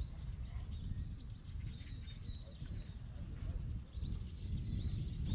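Low wind rumble on the microphone, with a small bird chirping in runs of quick, rapidly repeated notes: one run over the first few seconds and another starting near the end.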